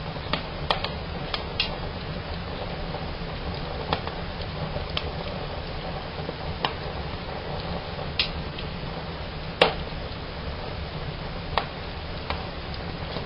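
Fire burning in a fireplace: a steady hiss of the flames with about a dozen sharp cracks and snaps at irregular moments, the loudest one about two-thirds of the way in.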